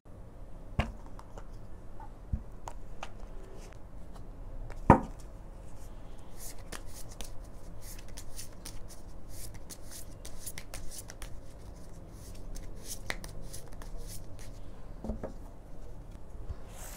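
Hands shuffling a tarot deck: a few scattered taps and one sharp knock about five seconds in, then a dense run of quick papery card sounds through the middle, easing off near the end as the deck is squared.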